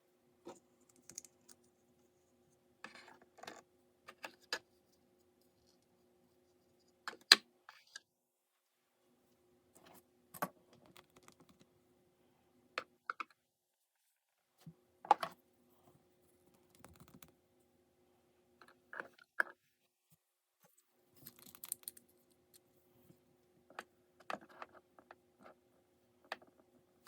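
Scattered sharp clicks, taps and brief rustles of small objects and packaging being handled, with one loud click about seven seconds in. A faint steady hum sits behind them in stretches.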